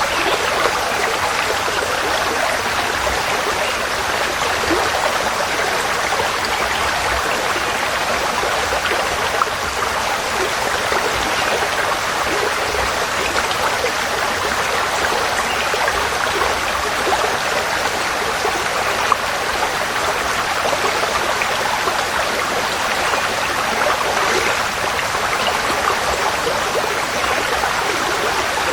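Forest stream flowing, a steady rush of water.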